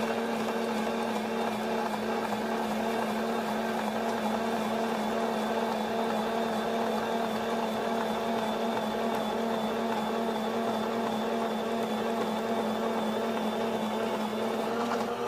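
Cuisinart Express Slicer, Shredder and Spiralizer's electric motor running with a steady, even hum while a zucchini is pushed down the feed tube and cut into slices that drop into the bowl.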